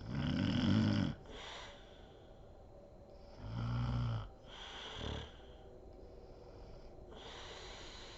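A woman snoring in her sleep: a loud low snore right at the start and another about three and a half seconds in, each followed by an airy breath out. There is a brief snort just after five seconds and a long breath near the end.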